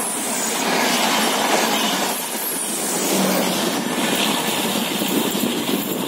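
A passenger train's coaches rolling past on the track and moving away, the wheels running on the rails with faint high squeals that slide down in pitch twice. The last coach passes and the sound eases slightly as the train recedes.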